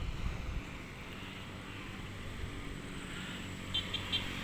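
Steady low hum of a distant engine, with wind rumbling on the microphone in the first half-second. Three short high chirps come near the end.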